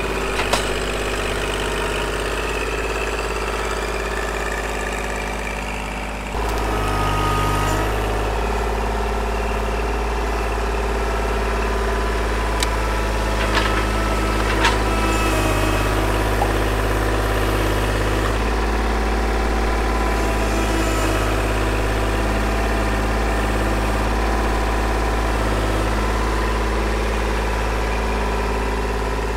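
Kubota L2501 compact tractor's three-cylinder diesel engine running steadily while the loader works the grapple on logs. The engine note shifts about six seconds in, and a few sharp knocks come near the middle.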